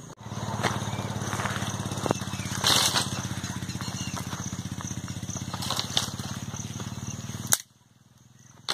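Motorcycle engine running at a steady pitch, with a fast even pulse and a few light knocks over it. It cuts off abruptly near the end.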